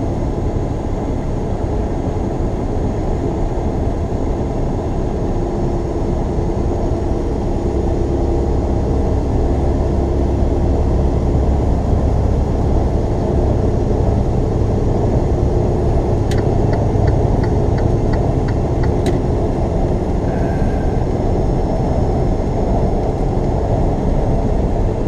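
Semi-truck's diesel engine and road noise, a steady rumble heard from inside the cab at highway speed. About two-thirds of the way in, a short run of light, even clicks lasts a few seconds.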